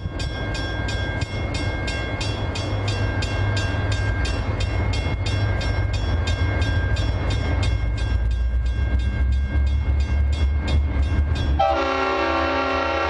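Approaching diesel locomotive, its engine rumble growing steadily louder, then a multi-note air horn sounding a chord about eleven and a half seconds in and holding.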